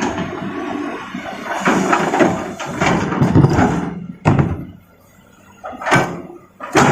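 Large rocks clattering and slamming into a steel dump-truck bed as an excavator loads them: a rough stretch of tumbling stone, then three separate heavy hits in the last few seconds.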